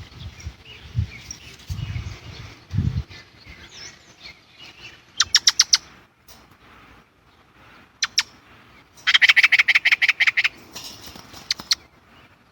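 Chinese blackbird giving rapid, harsh chattering calls in quick runs of sharp notes. The longest and loudest run, about a dozen notes, comes about two-thirds of the way in. A few low thuds come in the first three seconds.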